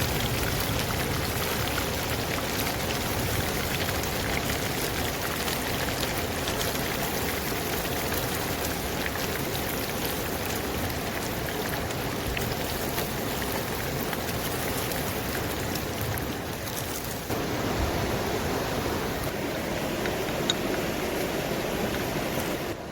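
Chicken pieces deep-frying in hot oil, a steady dense sizzle with fine crackling.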